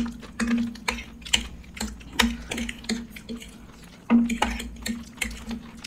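Eating at a table: a scattering of short clicks and clinks of food and dishes, sharpest about two seconds in and again past four seconds, over a low steady hum.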